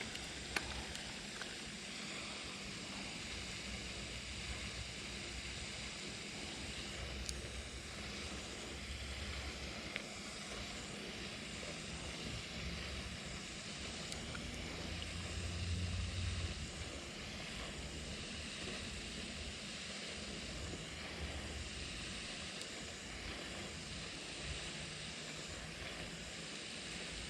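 Wind buffeting the microphone outdoors: a steady hiss with uneven low rumbles, and a stronger gust a little past halfway.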